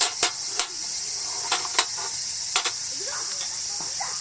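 Crickets and other insects chirping in a steady high-pitched chorus, with several sharp clicks or knocks in the first three seconds.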